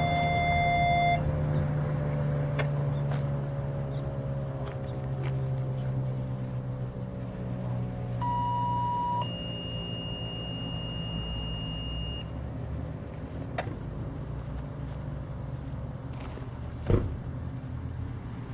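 Federal Signal 2001-130 rotating outdoor warning siren cutting off about a second in and winding down, its tone sliding slowly lower and fading over the following seconds as the rotor coasts to a stop. A separate electronic beep, first lower then higher in pitch, sounds for a few seconds midway, and a single thump comes near the end.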